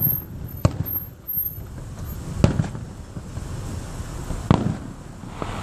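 Aerial fireworks shells bursting, heard from inside a car: three sharp bangs about two seconds apart and a fainter one near the end, over a steady low rumble.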